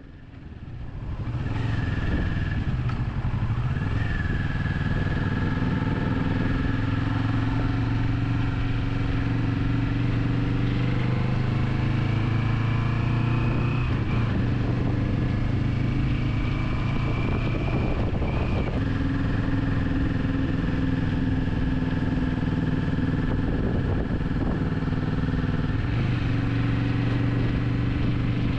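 Motorcycle engine running at road speed, heard from the rider's seat over steady road and wind rush. It fades in over the first couple of seconds, and its pitch shifts a few times as the throttle and revs change.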